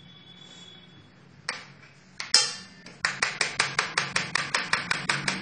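A plastic flour sieve being tapped by hand to sift gram flour: two single knocks, then from about three seconds in a quick, even run of taps, about five a second.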